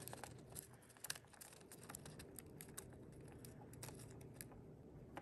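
Dwarf hamster nibbling a treat: a faint, irregular run of small crisp clicks, several a second.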